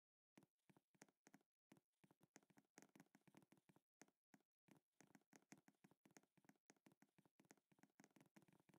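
Faint, rapid clicking of computer keyboard keys being typed, several keystrokes a second, starting just after the opening moment.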